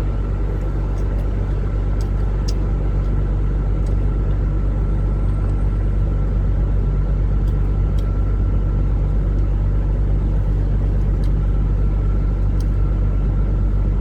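A steady low mechanical rumble with a faint steady high whine, and a few light clicks scattered through it.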